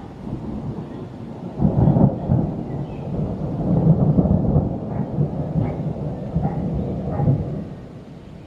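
Thunder: a long rolling rumble that breaks in sharply about a second and a half in, rolls on in several swells for about six seconds, then dies away near the end.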